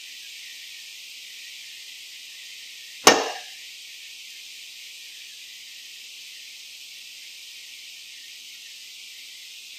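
A steel spoon knocked once against the pan: a single sharp clink about three seconds in with a brief ringing tail, over a steady high hiss.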